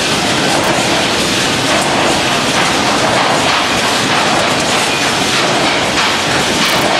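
Food packaging line machinery running: a steady, dense clatter of many small rattles and clicks.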